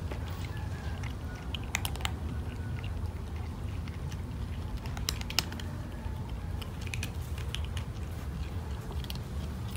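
Cat crunching dry kibble: short, irregular crunches and clicks, a few at a time, over a steady low background rumble.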